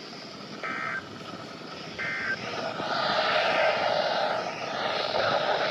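NOAA Weather Radio end-of-message data bursts: two short, shrill digital warbles about a second apart, the closing signal of the emergency alert. Radio static hiss then rises from about three seconds in and runs on.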